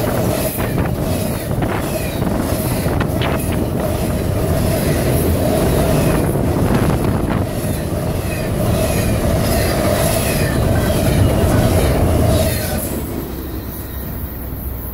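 Intermodal freight train of trailers and double-stack containers rolling past close by: a steady rumble of wheels on rail with a ringing tone and scattered clicks. It dies away near the end as the last car passes.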